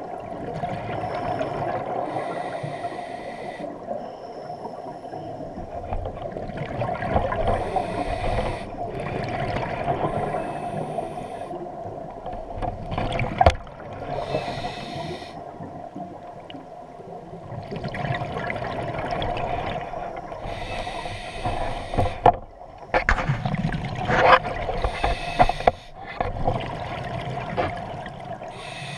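Scuba diver's exhaled bubbles from the regulator, bursts of bubbling every few seconds over a steady hum, heard underwater through a camera housing.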